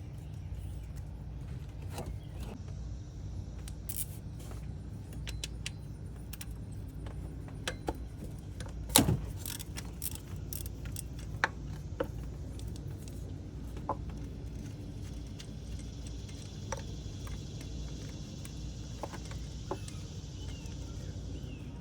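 Metal hand tools and bolts clinking and tapping during engine-bay work, with one louder knock about nine seconds in, over a steady low hum.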